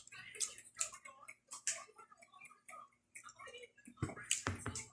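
Close-miked chewing of crisp raw leafy vegetables: irregular wet crunches and clicks, with a few louder ones near the end.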